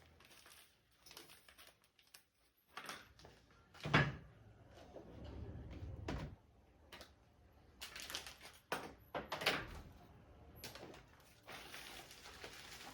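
Shopping-haul items being handled and set down on a surface: scattered knocks and rustles, with one louder thump about four seconds in and a cluster of knocks a few seconds later.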